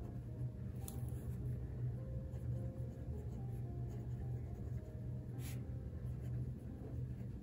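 Steel Bock medium fountain pen nib writing on grid notebook paper: soft scratching strokes as letters are formed, with two brief clicks and a steady low hum underneath. The nib writes very smooth and wet.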